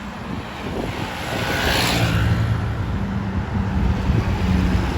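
Large diesel bus engine drawing near and getting louder, a low steady drone, with a rush of passing traffic about two seconds in; no telolet horn is sounded.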